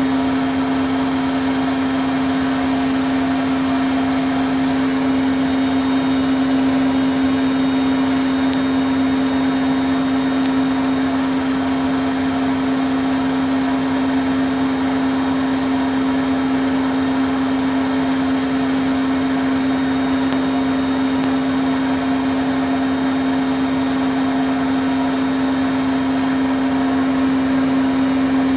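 Bosch Logixx 8 washing machine on its 1400 rpm spin, running loud and steady with a strong constant hum-whine over a broad whooshing noise.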